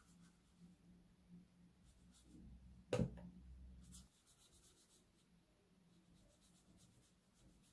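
Faint scratching strokes of a paintbrush on watercolour paper, with a single sharp knock about three seconds in.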